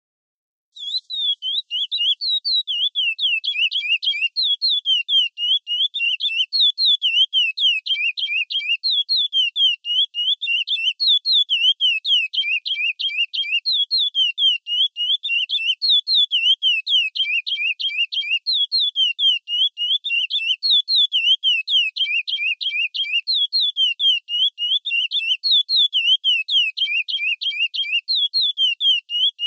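Curió (chestnut-bellied seed finch) singing the classic 'Praia' song: a fast, unbroken run of high whistled chirps, each note sweeping down and back up, starting about a second in.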